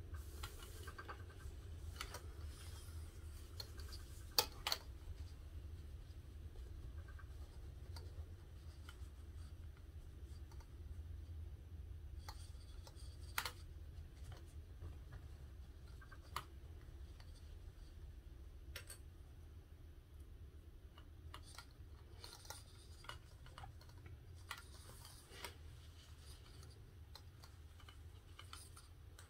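Plastic sewing clips snapping onto a folded fabric strap, with the rubbing and rustle of the fabric being handled on a cutting mat: scattered sharp clicks, the loudest about four and a half seconds in and again about thirteen seconds in, over a low steady hum.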